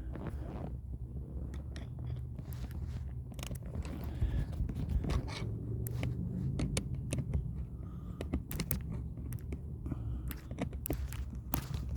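Irregular small clicks and scraping as a small screw is fitted and driven into a seat-belt assembly by hand, over a low rumble.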